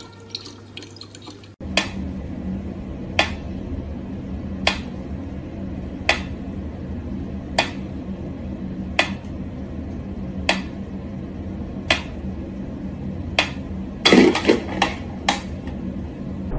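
Water dripping at a steady pace, one drop about every second and a half, over a steady low hum, with a brief cluster of louder sounds near the end.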